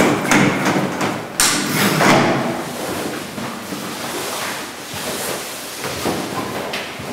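Stiff fabric of a portable smoke-blocker curtain being pulled off a door frame, with a few sharp knocks and a harsh ripping rush in the first two seconds. Softer, continuous rustling follows as the loose sheet is handled and gathered up.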